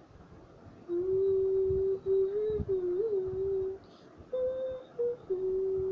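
A woman humming the melody with her mouth closed between sung lines: a few held notes with a small waver, stepping up to a higher note about halfway through and settling back on the lower note near the end.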